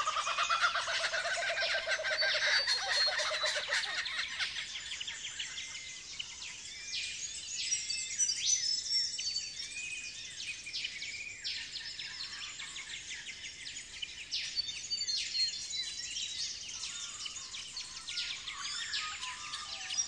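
Dawn chorus of Australian bush birds: many birds chirping and calling at once. A lower, rhythmic call in the first few seconds stops about four seconds in.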